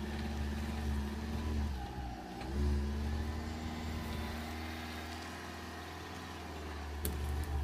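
Car engine running under load while towing a log on a rope, easing off about two seconds in and then revving up again. A single sharp click comes near the end.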